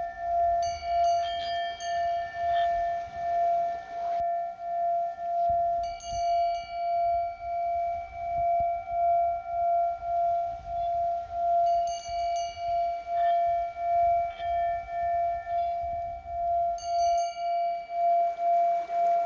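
Himalayan singing bowl ringing with a steady, wavering tone that pulses in loudness about one to two times a second; fresh higher overtones come in about every six seconds.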